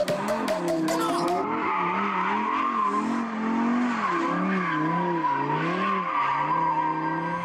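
Audi R8 V10 RWS's naturally aspirated 5.2-litre V10 rising and falling in pitch again and again as the throttle is worked through a drift, with the rear tyres squealing.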